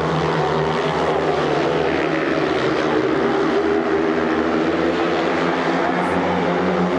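Four 500 cc single-cylinder speedway motorcycles racing around the track, their engines blending into one steady, loud drone.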